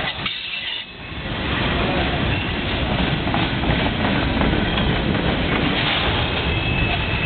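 Freight train cars rolling past at close range, tank cars and covered hoppers, their steel wheels making a steady rumble on the rails that swells after the first second. A thin high squeal joins near the end.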